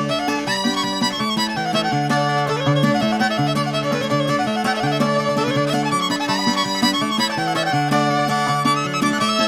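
Background instrumental music with a fiddle playing a lively melody over steady held notes.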